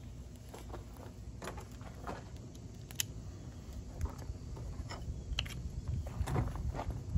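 Dry tinder bundle burning in a small metal fire can: irregular sharp crackles and pops over a low steady rumble, growing more frequent in the second half.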